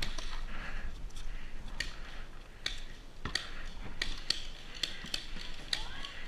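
Irregular sharp clicks and snaps from paintball gear, about ten spread unevenly over several seconds, over a low rustle of movement.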